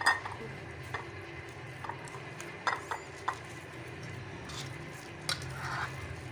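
Wooden spoon scraping and tapping in a glass baking dish as crumbly besan barfi mixture is spooned in and pushed about. There are several sharp knocks, the loudest right at the start, over a steady low hum.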